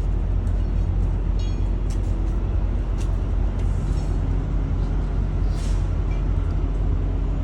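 Heavy truck's diesel engine idling: a steady low rumble with a faint hum, a few light clicks, and a brief hiss a little past halfway.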